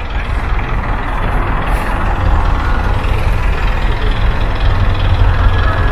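Steady low engine rumble of nearby motor vehicles, like a truck idling.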